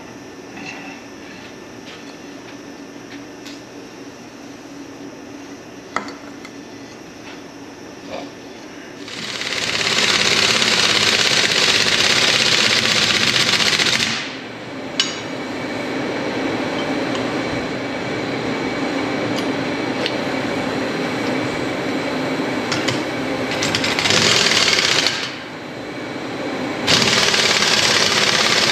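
A few light metal clicks and taps, then a pneumatic impact wrench runs in long spells with a loud hissing rattle. It runs hard for about five seconds, eases to a lower level, then runs hard again twice with a short break between.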